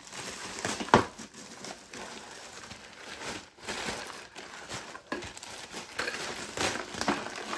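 Clear plastic bag of toilet hardware crinkling as it is handled and lifted out of the bowl, irregular rustles with a sharp crackle about a second in.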